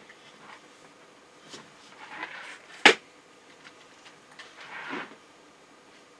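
Handling noise from iMac parts being worked on by hand: light clicks and short scrapes, with one sharp loud click about three seconds in.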